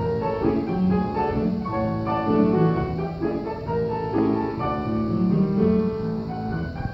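Solo upright acoustic piano playing a ragtime tune, a steady stream of melody notes over bass notes and chords.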